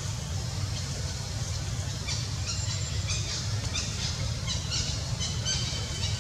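Short, high-pitched chirping and squeaking animal calls, a rapid string of them starting about two seconds in, over a steady low rumble.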